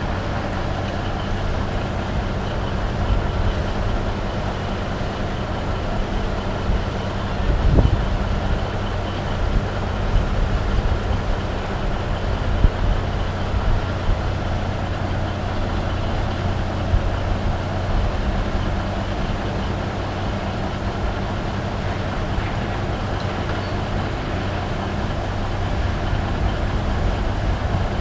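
Heavy diesel engines running steadily while a Cat log loader swings a log over a logging truck, with a low thump about 8 seconds in.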